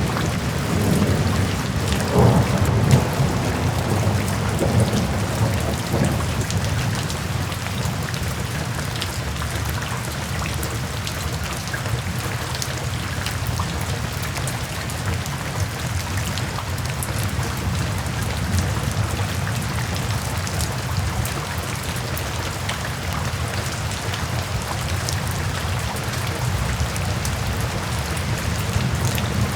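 Steady rain falling. A low rumble of thunder swells up in the first few seconds and fades by about seven seconds in.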